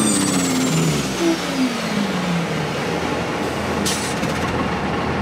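Street semi-truck's turbo diesel engine easing off. The engine note and the high turbo whine both fall in pitch over about two seconds, then a short hiss of air comes about four seconds in.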